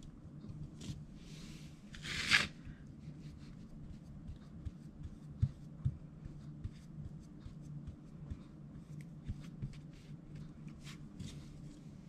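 Flat paintbrush brushing a coat onto a small wooden sign: faint scratchy strokes and small taps and clicks as the brush works and touches the jar, with one short louder scrape about two seconds in, over a low steady hum.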